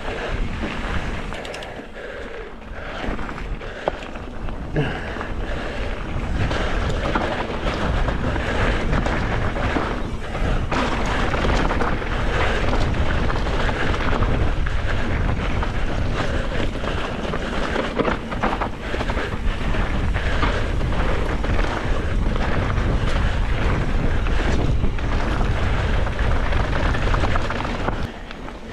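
Wind rushing over the microphone as a mountain bike descends a dirt trail at speed, with the tyres rolling and the bike rattling and knocking over bumps. It eases off near the end.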